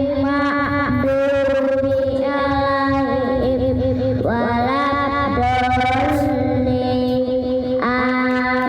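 A child's high voice chanting Qur'an recitation in long, drawn-out melodic notes that step from one held pitch to the next.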